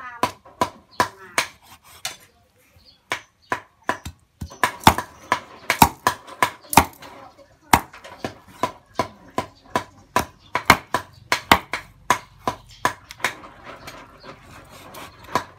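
Meat cleaver chopping a raw chicken into pieces on a thick round wooden chopping block: repeated sharp chops, two to three a second, with a short pause about two seconds in.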